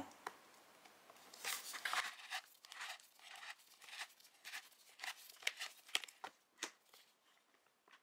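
Faint, irregular crackling and scraping of a cable-stripping knife slicing around a plastic fungus bottle as the bottle is turned against the blade; it stops about a second before the end.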